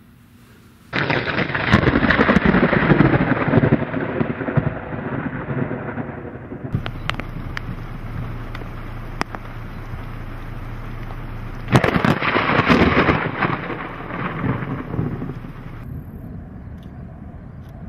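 Two loud rumbling crashes of thunder about ten seconds apart. Each starts suddenly and dies away over a few seconds, and a steady low hum with scattered crackles lies between them.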